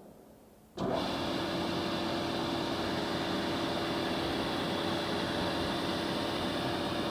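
SCM SI400N sliding-table panel saw running steadily, with a steady hum and a higher whine over the machine noise. The sound comes in abruptly just under a second in.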